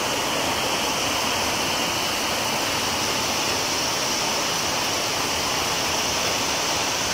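Steady, even hiss with no distinct events and no speech: constant background noise.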